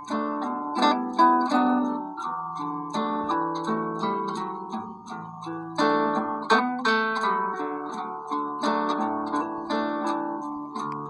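Instrumental background music: plucked-string notes that start sharply and fade, playing a continuous melody over chords.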